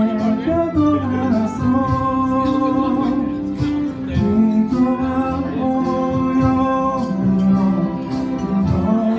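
Live band playing a Japanese pop ballad, with a singer over sustained electronic organ chords.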